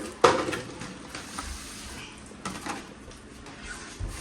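Household handling noises while groceries are put away: a sharp knock about a quarter second in, then a few fainter knocks and clicks.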